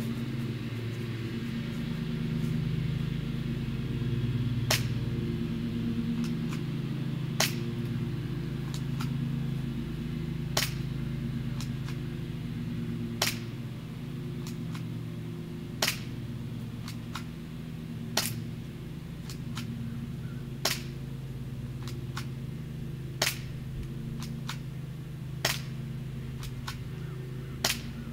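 P169 airsoft pistol firing single shots at a target, about ten sharp cracks spaced roughly two and a half seconds apart.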